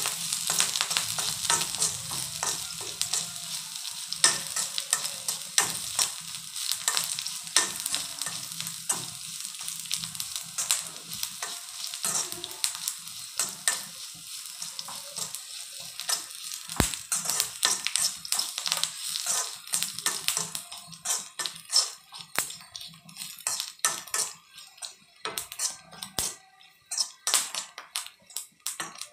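Oil sizzling in a pan as a metal spatula stirs and scrapes a fry of dried red chillies, green chillies and curry leaves. The sizzle dies down over the last several seconds, leaving mostly the spatula's scrapes and taps on the pan.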